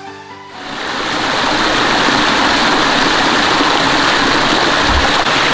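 Waterfall water pouring into its pool: a steady, loud rush that swells in over the first second as a music track ends.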